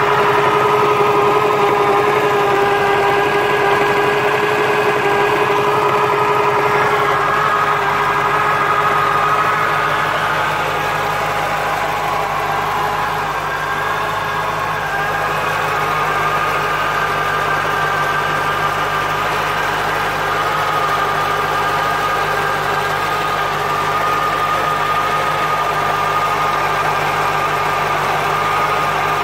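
1996 Corvette C4's LT4 V8 running steadily at idle, with a steady whine of several held tones, the noise the owner is chasing in the ZF six-speed manual gearbox. The whine eases a little and its lowest tone fades after about eight seconds.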